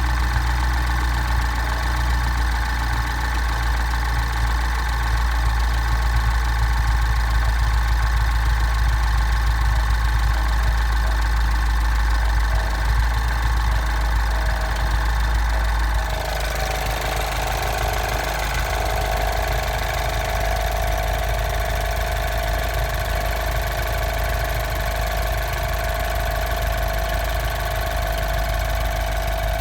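Mini John Cooper Works R56's 1.6-litre turbocharged four-cylinder N18 engine running steadily. About halfway through the sound changes: the low rumble drops a little and a steady whine comes in, lasting to the end.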